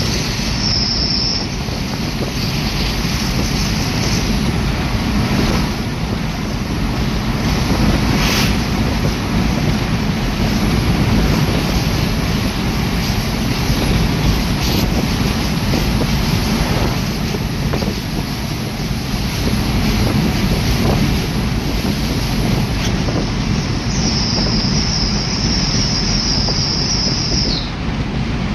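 Steady rushing road and wind noise with a low engine rumble, heard inside the cab of a vehicle driving at speed. A thin high whine comes in for a few seconds near the end and stops with a short downward slide.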